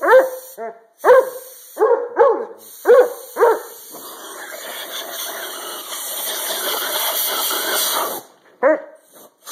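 Basset hound barking, a quick string of short barks over the first four seconds. Then a steady hiss of compressed air from an air blow gun runs for about four seconds and cuts off, followed by one more bark.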